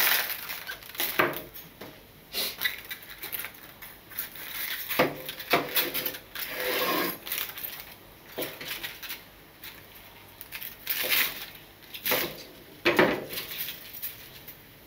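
Kitchen knife cutting through a head of cabbage on a bamboo cutting board, with irregular knocks of the blade on the board and the crisp crunch of cabbage leaves being cut and pulled apart by hand.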